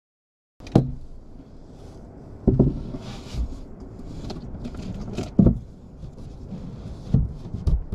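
Silent for about half a second, then scattered knocks and thumps with rustling in between: a person shifting about and handling things on a mattress inside a small camper-truck interior.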